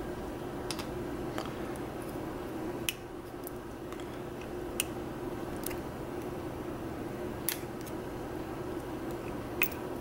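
Small, sharp metallic clicks at irregular intervals from a small pick or screwdriver tip working against a brass pin-tumbler lock cylinder and its pins while the plug is being pushed out, over a steady low background hum.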